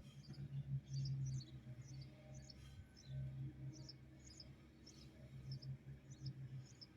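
Small birds chirping repeatedly, short high chirps a few times a second, over a low steady drone that swells and fades.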